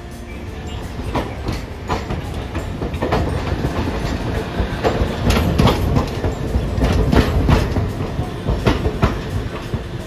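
Hiroden streetcar no. 806 rolling slowly past at close range, its wheels clacking over the rail joints under a low running rumble. It grows louder as it passes and then eases off.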